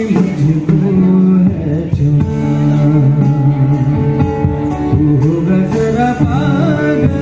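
Live band amplified through a PA speaker system: a man singing into a microphone over instrumental backing with a steady bass line.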